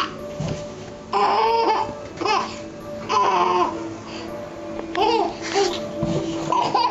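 Baby babbling and laughing in short bursts, several times, over background music with steady held notes.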